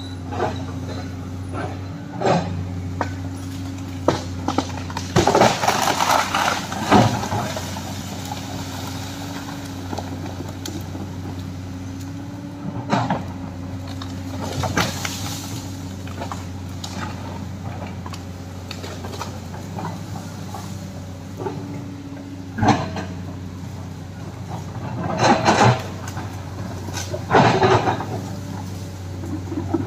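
Hydraulic excavator's diesel engine running steadily under working load. Over it come irregular crashes and cracks of wood and debris as the machine breaks and shifts a fallen tree: a cluster a few seconds in, scattered single ones, and two heavy bursts near the end.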